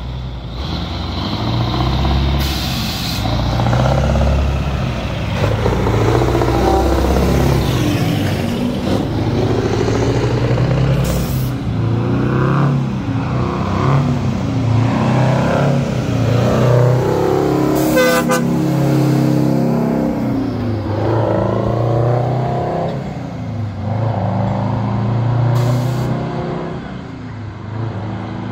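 Heavy diesel truck engines pulling past, their pitch rising and falling again and again as they accelerate and shift gears. Short air hisses break in four times, typical of truck air brakes.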